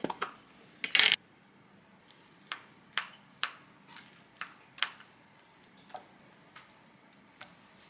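A plastic food container's lid comes off with a short loud rustle about a second in. Then a wooden spoon knocks and scrapes against the plastic tub while stirring cooked rice, giving sharp clicks about every half second, with a few fainter taps near the end.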